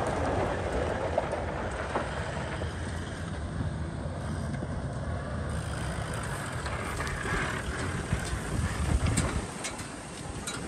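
A vehicle's engine running at low speed as it drives up close and pulls in, a steady low rumble that eases near the end.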